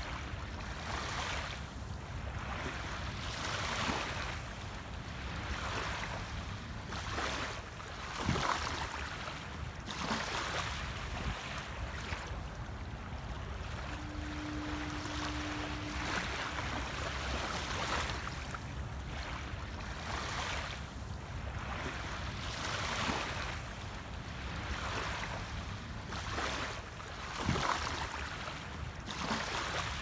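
Small waves lapping and washing onto a sandy shore, in soft swells every couple of seconds, over a low rumble of wind on the microphone. A faint steady hum sounds for about two seconds midway.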